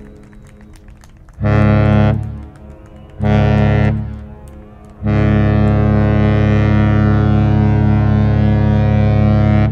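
Cruise ship Celebrity Reflection's horn: two short deep blasts, then one long blast, each fading out in an echo.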